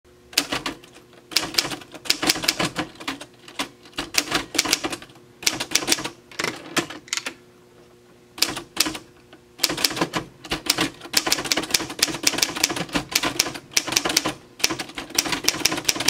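1952 Remington Super-Riter manual typewriter being typed on: quick runs of sharp typebar strikes against the platen, in bursts broken by short pauses, with a longer pause about halfway.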